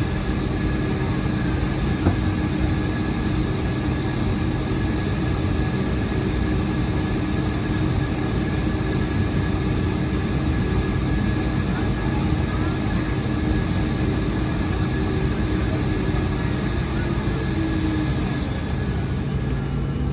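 Cabin noise inside a Boeing 757-200 taxiing after landing: its Rolls-Royce RB211 engines at idle and the rush of cabin air make a steady roar with faint steady whines. A lower hum comes in near the end.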